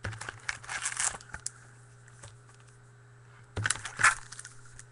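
Crinkling and tearing of a trading-card pack's foil wrapper as it is torn open, in two bursts: one over about the first second and another about three and a half seconds in.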